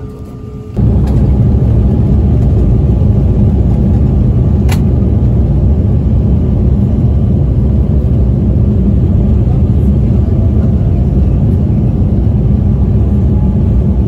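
Airliner cabin noise heard at a window seat over the wing: a loud, steady low rumble of the jet engines and the aircraft rolling on the ground, starting suddenly about a second in, with a faint rising whine near the end.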